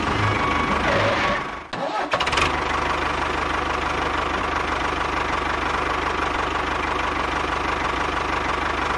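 Tractor engine running steadily with an even pulse. It cuts out briefly about two seconds in, then starts again and runs on.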